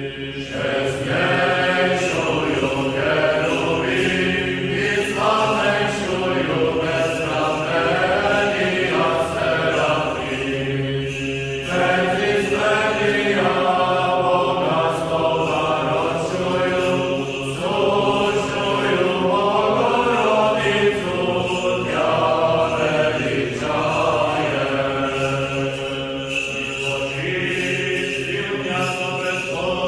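Background music: choral chant, voices singing a slow melody over a steady held low note.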